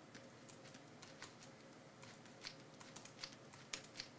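Faint, irregular clicking of computer keyboard keystrokes, a few at first, then quicker and a little louder in the second half.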